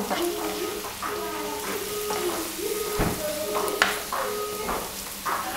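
Sweet potato pieces frying in hot oil in a pan, a steady sizzle, while a wooden spatula stirs and scrapes them, with a couple of sharp knocks on the pan about three and four seconds in.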